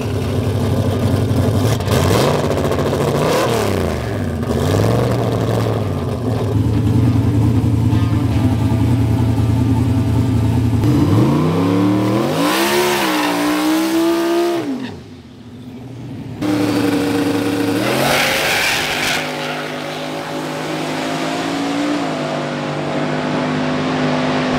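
Turbocharged 6.0-litre aluminium LS V8 of a drag-built Monte Carlo running: a few quick throttle blips a few seconds in, then a steady idle. About halfway through comes a longer rev that climbs and falls. It cuts off suddenly, and after a short gap the engine returns at a steady run.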